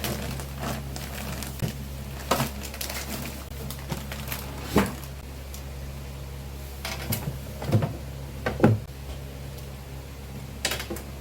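Groceries and storage containers being handled and set down while restocking and organizing a refrigerator: scattered short clicks and knocks, a few louder ones near the middle, over a steady low hum.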